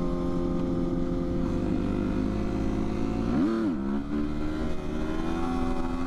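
Motorcycle engine running steadily, with one quick rev that rises and drops back about three and a half seconds in.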